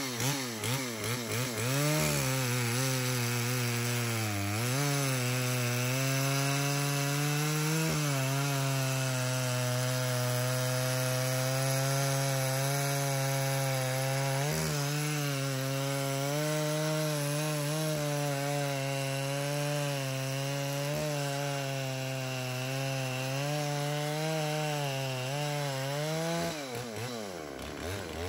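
Dolmar PS 7300 two-stroke chainsaw with a big bore kit, blipped a few times and then held at full throttle cutting into a log. Its pitch sags and recovers under load, and it drops away toward idle near the end. It runs clean at full throttle without starving for fuel on its makeshift small-hose tank vent.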